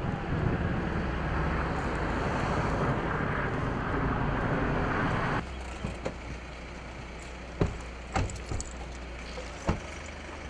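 Strong wind buffeting the microphone, a dense rushing noise that drops off abruptly about five seconds in. The quieter stretch after it holds three sharp knocks.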